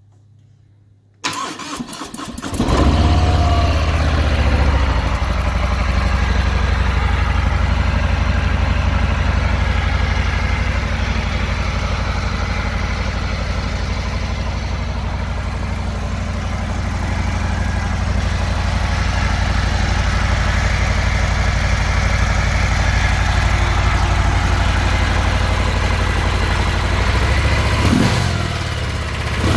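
2018 Harley-Davidson Fat Bob's Milwaukee-Eight 107 V-twin with stock exhaust: the starter cranks about a second in, the engine catches and settles into a steady idle. A cold start.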